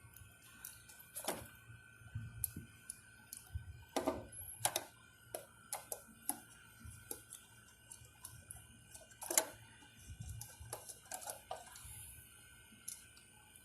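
Irregular light clicks and taps of hand tools and wire terminals being handled at an air-conditioner's magnetic contactor during rewiring, with a few sharper clicks, over a faint steady hum.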